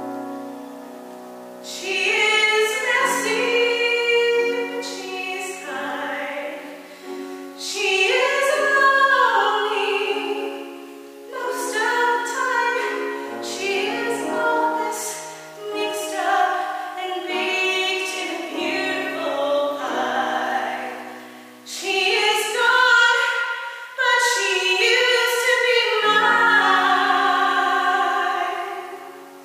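A woman singing a musical-theatre ballad in full voice with vibrato, accompanied by grand piano, in phrases that swell and fall back. The sound fades away near the end as the song closes.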